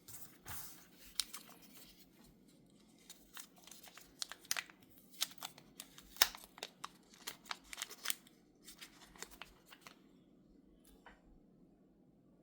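Hands handling packaging and small parts while unboxing: a run of irregular clicks, taps and rustles for about ten seconds, then quieter apart from a single click near the end.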